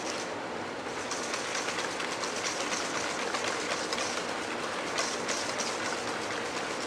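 Wire whisk beating egg yolks and sugar together in a bowl: a fast, steady, rhythmic clatter of the wires against the bowl.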